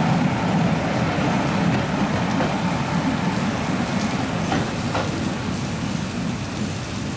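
Steady rain falling, over the low rumble of an ex-Matsuura Railway MR-300 diesel railbus that slowly fades as it moves away.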